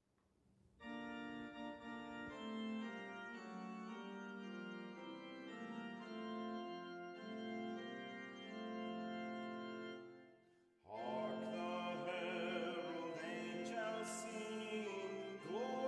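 Organ playing slow, sustained chords that change every second or so. After a short break about ten seconds in, the music resumes and a voice with vibrato sings over the accompaniment.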